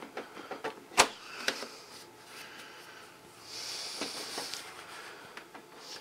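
Hands working at the back cover of a De'Longhi coffee machine to slide it off. A sharp knock comes about a second in, then a lighter tap, then a soft rustling scrape.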